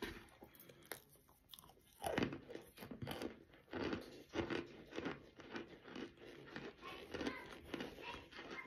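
Compressed cornstarch being bitten and chewed, a crisp crunch at the start, then dense, continuous crunching from about two seconds in.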